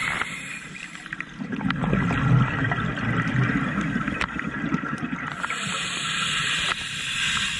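Scuba diver breathing through a regulator underwater: a bubbling exhale rumbles out, then a hissing inhale starts about two thirds of the way in.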